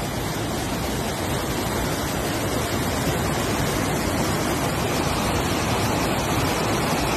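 River rapids rushing over rock ledges: a steady, loud wash of white water with no let-up.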